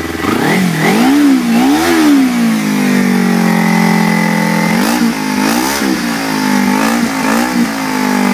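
Kawasaki Ninja 250R parallel-twin engine running through an aftermarket Blueflame titanium oval exhaust, given short throttle blips: two revs about a second in, a steady fast idle between, then a cluster of quick revs between about five and seven and a half seconds in. The engine is cold, so the revs are kept light.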